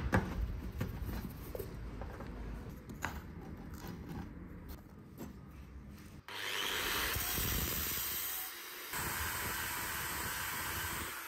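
A few faint taps and knocks of hands handling a metal casting pot, then, about six seconds in, a power grinding wheel starts grinding metal with a steady, even hiss, breaking off briefly near the end before running on.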